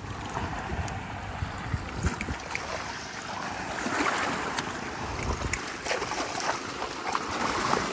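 Small sea waves lapping and washing over rocks and pebbles at the shoreline, with gusts of wind rumbling on the microphone.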